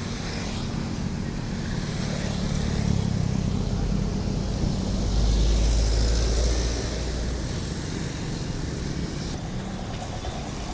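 Bus engine running close by, a low rumble that grows louder to a peak about five to seven seconds in and then eases off.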